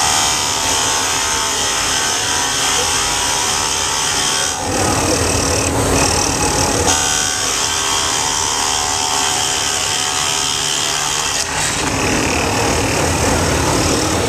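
Drill press running as a Forstner bit bores into a pine board. The sound is steady and shifts in character twice: about a third of the way in and again near the end.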